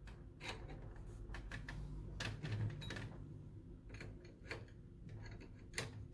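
Scattered faint metal clicks and clinks of two open-end spanners, 17 mm and 16 mm, working against each other to tighten the body of a PL-259 clamp connector onto coaxial cable.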